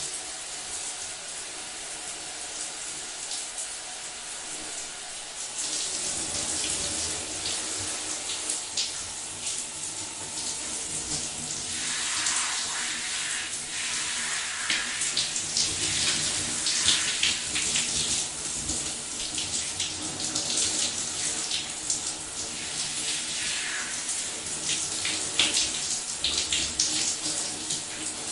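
Water from an overhead shower running and splashing, getting louder about six seconds in, with uneven splashes throughout.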